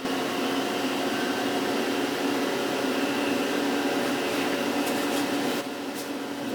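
Fairlight CMI Series III starting up and running: a steady whirring hum of its fans and drives with several held tones, and a few sharp clicks about four to six seconds in.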